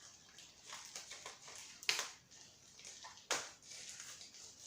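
Plastic wrapping on a drone remote controller crinkling and rustling as it is handled and pulled open, with two sharp crackles, about two seconds in and a little over three seconds in.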